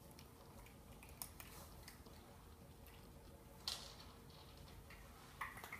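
Near silence with a faint steady hum and a few short, faint clicks, the clearest about three and a half seconds in.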